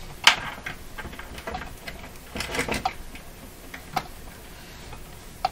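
Clicks and taps from wires and alligator-clip test leads being handled on a workbench. A sharp click comes about a quarter second in, a quick cluster follows around two and a half seconds, and single clicks come near four seconds and at the very end.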